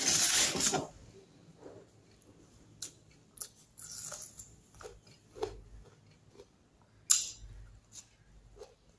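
Close-up eating sounds of a person eating rice and curry with her fingers: wet chewing, mouth clicks and lip smacks. A louder burst of noise comes in the first second, and a sharp smack about seven seconds in.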